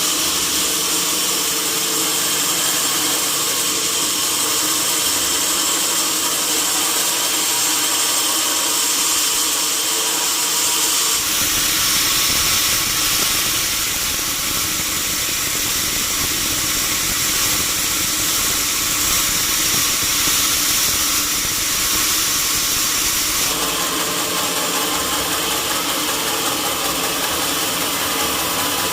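Sawmill machinery running steadily. The sound grows fuller and rougher for a stretch from about a third of the way in to about four-fifths of the way through, then settles back.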